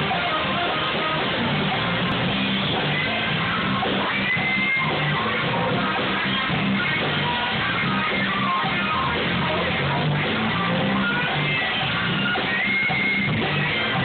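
A live band playing, led by electric guitar with drums, recorded through a phone's microphone that cuts off the highs.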